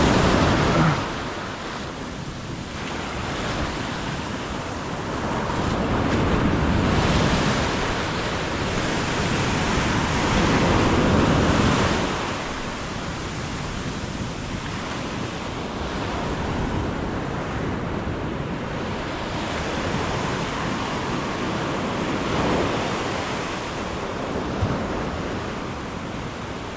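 Ocean surf breaking on a sandy beach, the waves washing in and out in slow surges, the loudest about seven and eleven seconds in, with wind on the microphone.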